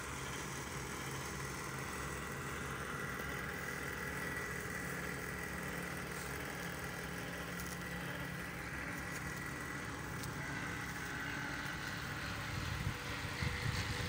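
Steady mechanical hum with faint low tones and a thin, steady high whine, like a running machine, a little louder near the end.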